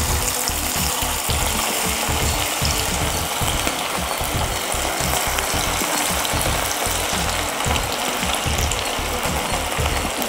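Marinated, batter-coated chicken pakoda pieces sizzling steadily in hot oil as they are dropped in by hand and deep-fry, with scattered sharp crackles.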